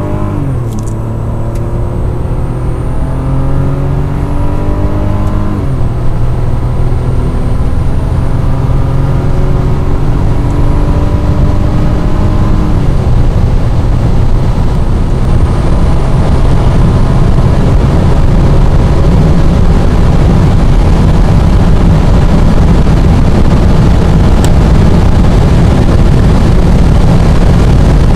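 Bentley Continental Flying Spur's twin-turbo W12 under full-throttle acceleration, heard from inside the cabin. The engine note rises steadily and drops sharply at each automatic upshift: near the start, after about six seconds and after about thirteen seconds. As speed climbs toward 280 km/h, wind and road noise build until they drown out the engine.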